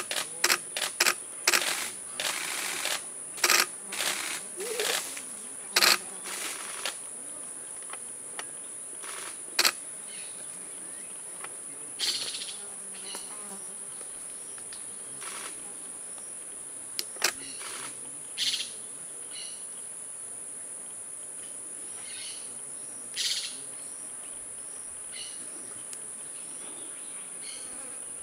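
A steady high-pitched insect drone runs throughout, with scattered sharp clicks and short noisy bursts that are thickest in the first seven seconds.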